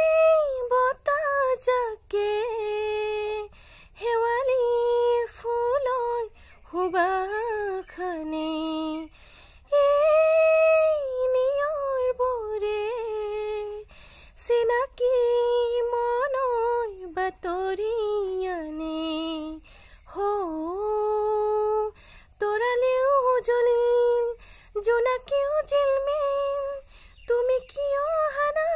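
A woman's voice singing a slow tune without words, humming-style, each note held for a second or two with gliding turns and short breaks between phrases.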